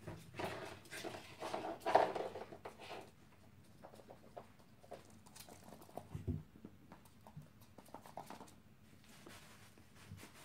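Chihuahuas playing on a dog bed, making dog sounds with scuffling, loudest in the first three seconds, then scattered light taps and rustles.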